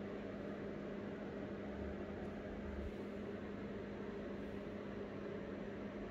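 Steady low hum with an even hiss over it, unchanging throughout: room noise such as an appliance or fan running.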